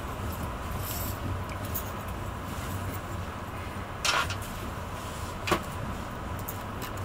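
Steady low rumble of a Renfe AVE S-102 (Talgo 350) high-speed train running, heard from inside the coach. A brief rushing hiss comes about four seconds in and a sharp click about a second and a half later.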